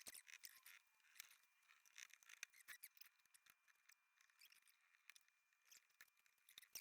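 Near silence with faint, scattered small clicks and scrapes: small screws being handled and driven into the plastic housing of a box fan.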